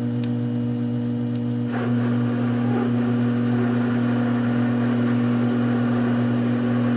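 Taig lathe running with a steady motor hum. About two seconds in, a steady higher hiss joins as the tangential tool starts cutting a scrap of aluminum dry.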